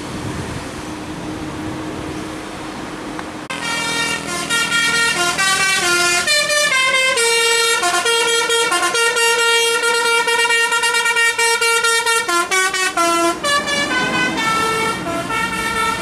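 A bus engine running as a bus comes up the bend. About three and a half seconds in, a telolet "basuri" multi-tone musical horn on an Indonesian tour bus starts playing a tune: loud, stepping from note to note, with a short break about twelve seconds in.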